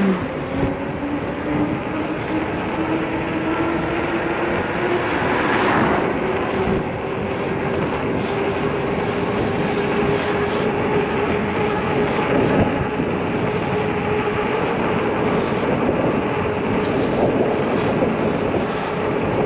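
Electric bike riding at speed: steady road and wind noise with a motor whine from its 750 W motor. The whine rises in pitch over the first ten seconds or so as the bike accelerates toward about 28 mph, then holds steady.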